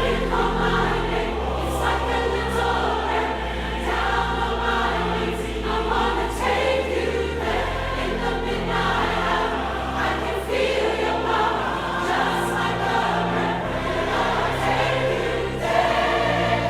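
Choral music: a choir singing sustained chords over held bass notes that change every few seconds.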